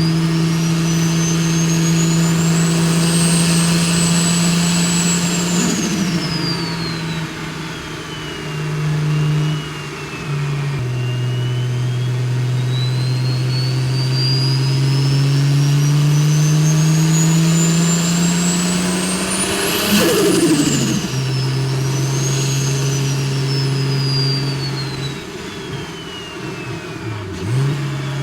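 BMW N54 inline-six with a big single-turbo conversion pulling under load, its turbo whistle climbing and falling with engine speed. About twenty seconds in, the whistle climbs to a sharp peak and then drops suddenly as the throttle closes, the moment of lift-off that brings turbo flutter.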